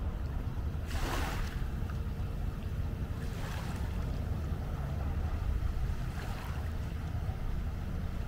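Wind rumbling on the microphone at the waterside, with waves washing in three times, about two to three seconds apart.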